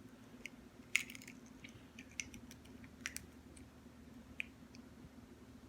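Eggshell being pried open by hand: faint, irregular small clicks and cracks, the sharpest about a second in, over a low steady hum.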